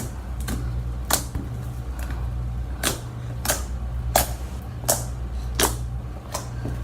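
Slime being squeezed and pressed by hand for ASMR, giving a series of sharp clicking pops, roughly one or two a second, over a low steady hum.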